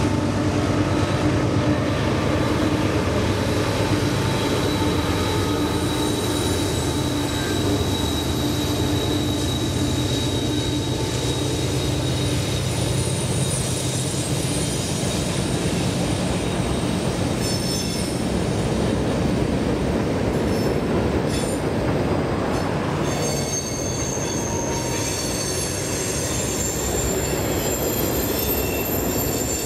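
CSX freight train rolling across a steel trestle bridge. The diesel locomotives' engine drone fades over the first dozen seconds as they pass, leaving the steady rumble of freight cars on the rails. High wheel squeals join in from about two-thirds of the way through.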